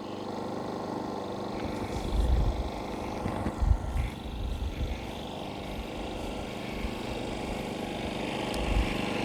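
Westinghouse iGen4500 inverter generator running steadily out of eco mode, heard from about 20 feet away, with a few low thumps on the microphone. It grows slightly louder near the end.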